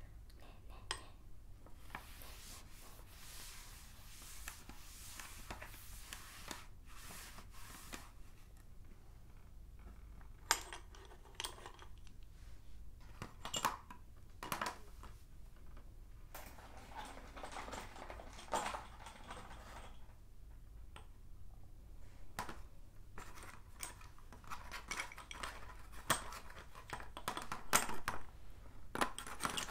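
Sticks of blackboard chalk clinking and clattering against one another and tapping on a small chalkboard: scattered light clicks, more frequent near the end, with a stretch of soft scraping in the first several seconds.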